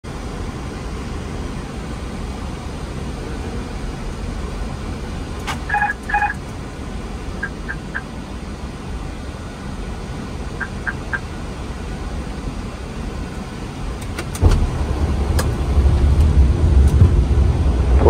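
Steady low rumble of an Airbus A330's flight deck in flight on approach. Around six seconds in, two short electronic beeps sound, with a few faint clicks scattered after, and about fourteen and a half seconds in the rumble steps up and grows louder.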